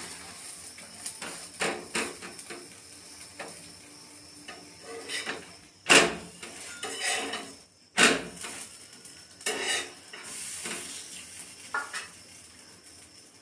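A metal spatula and utensils clatter and scrape against a flat tawa griddle as a paratha is turned. The clinks and knocks are irregular, and the two loudest, sharpest knocks come about six and eight seconds in.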